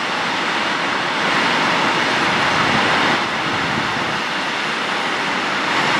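Freight train of loaded log wagons rolling past, a steady rushing noise of wheels on rails.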